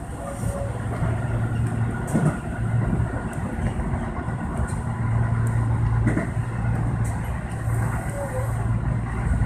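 Tobu electric commuter train running along the track, heard from inside the front car: a steady low hum and rumble of wheels and traction equipment, with a knock from the track about 2 seconds in and again about 6 seconds in.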